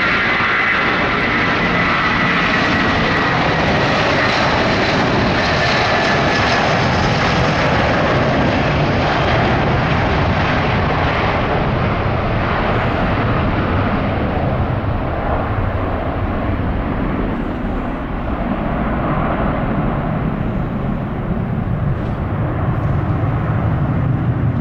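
Airbus A330 twin jet engines at takeoff thrust through the takeoff roll, liftoff and climb-out. Early on a high whine sits over the steady engine noise. In the second half the high tones fade and a low rumble carries on as the airliner climbs away.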